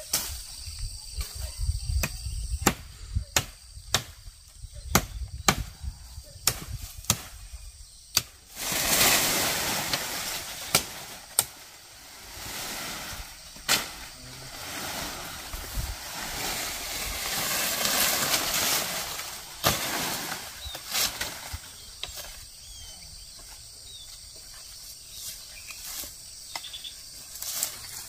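Footsteps and sharp snaps of twigs and dry plant debris, then, from about eight seconds in, a long stretch of loud rustling of leaves and branches as someone pushes through dense undergrowth. A few more snaps follow near the end.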